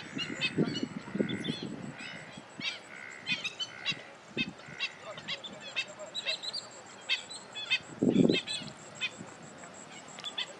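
Birds calling: many short, high chirps keep overlapping, with deeper honking calls about a second in and again near eight seconds.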